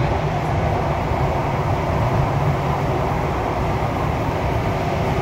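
Steady running noise of a Thomson-East Coast Line CT251 metro train moving through a tunnel, heard from inside the leading car: an even, unbroken rumble of wheels on rail and air.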